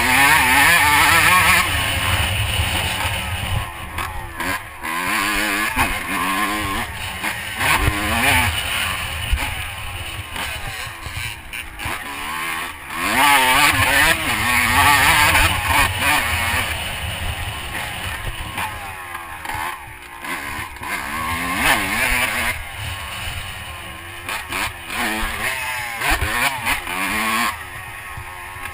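Honda CR125 two-stroke single-cylinder dirt bike engine being ridden hard, its revs climbing and dropping again and again through the gears.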